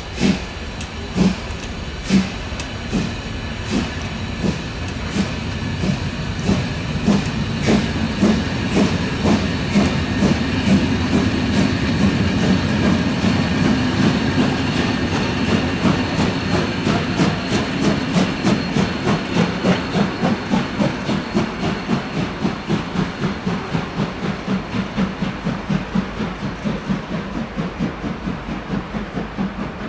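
Two-cylinder steam locomotive 01 202 pulling its passenger train away, a rhythm of sharp beats and wheel clacks over a steady hiss and rumble. The beats quicken from about one a second to about two a second as the train gathers speed, the coaches' wheels clacking over the rail joints as they roll past.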